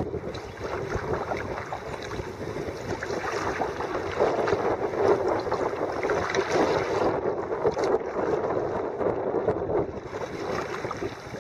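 Water splashing and rushing against a kayak on a flooded river, with wind buffeting the microphone.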